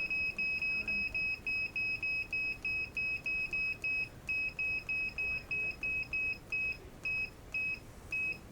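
Electric pressure cooker's control panel beeping as the time is stepped up to 30 minutes, one short high beep per press. The beeps come about four a second, with a brief pause around four seconds in, then slow to about two a second near the end.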